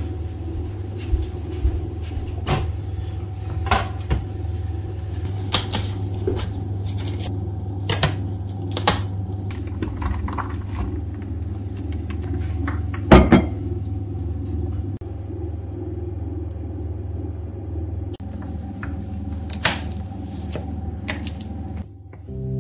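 Kitchen food-prep handling sounds: scattered clicks, knocks and clatter of food and dishes set down on metal trays and the counter, with a louder double knock about halfway through, over a steady low hum.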